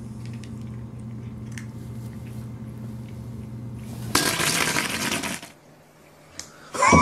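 A steady low hum runs under the scene. About four seconds in, a loud, harsh hiss-like burst of noise lasts just over a second as the cat is startled. Right at the end a high cry begins, falling in pitch.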